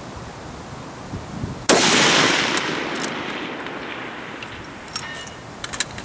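A single .308 rifle shot about two seconds in, its report echoing and dying away over several seconds, followed by a few light metallic clicks near the end.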